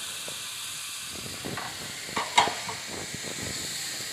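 Chopped cabbage, onion and capsicum sizzling steadily in a frying pan, with scattered scrapes and clicks of a plastic spatula stirring them from about a second and a half in.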